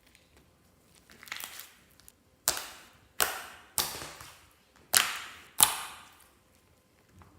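Clear slime being pressed and pulled by hand, letting out about six sharp air-bubble pops with short crackly tails, roughly half a second to a second apart. The loudest pops come in the second half.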